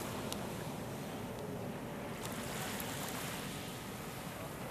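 Distant jet airliner passing high overhead: a steady low rumble that fades slightly as it moves away.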